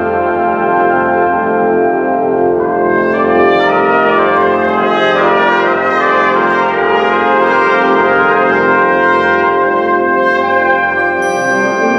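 Concert wind band playing sustained chords with the brass prominent; about three seconds in the sound grows brighter and fuller. Near the end, high ringing tones enter above the chords.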